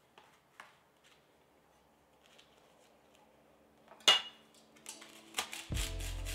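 A glass loaf dish set down on a thin wafer sheet with one sharp clink about four seconds in, then a knife crunching through the crisp wafer in quick strokes. Background music comes in near the end.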